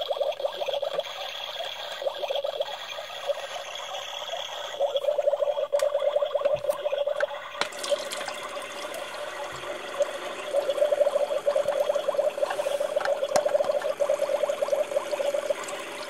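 Battery-powered toy coffee machine running: a small pump buzzes steadily while water trickles into a plastic cup. There are a few clicks near the middle.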